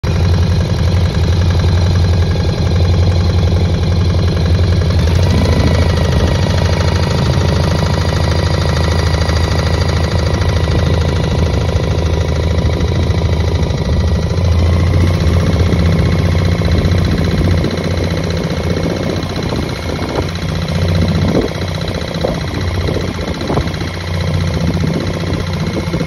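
Boat engine running steadily, a loud low pulsing drone with a faint whine above it, with a few short splashy sounds over it in the last several seconds.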